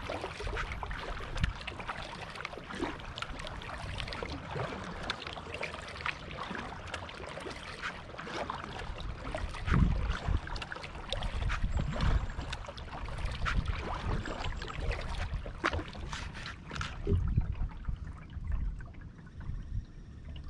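Kayak paddling: the paddle dipping and water splashing and trickling off the blades in an irregular patter, with a few low thumps along the way.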